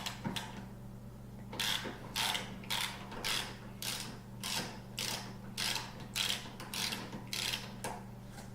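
A socket ratchet with a 10 mm socket loosening a foot peg bolt: short runs of ratchet clicks about twice a second, starting about a second and a half in.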